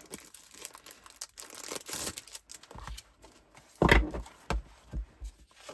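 Clear plastic sleeve crinkling and rustling as a pad of scrapbook paper is slid out of it. About four seconds in, a loud knock and then a few softer ones as the paper stack is knocked against the table.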